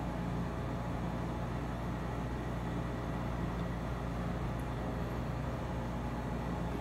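Steady low machine hum with a constant rumble underneath, unchanging throughout.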